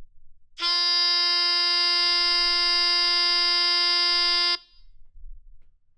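A single held reference note on F, a buzzy steady tone lasting about four seconds, sounded as the starting pitch before the a cappella singing begins.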